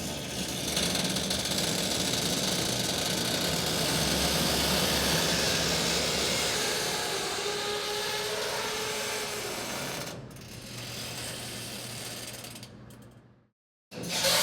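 Metal gate being worked back and forth, a dense rattling clatter of loose metal with a faint drawn-out squeak from the hinges. It drops to a quieter rattle about ten seconds in and fades out just before the end.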